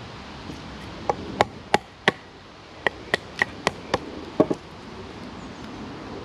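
Wooden baton striking the spine of a knife to split wood out of a sawn log for a wooden hobo stove: about a dozen sharp knocks in two quick runs, some with a short ring.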